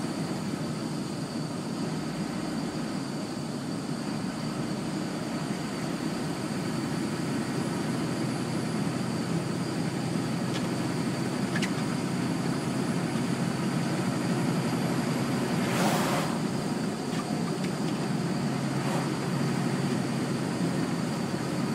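Steady engine and tyre noise inside a vehicle cab while driving along a highway, with a short hiss about sixteen seconds in.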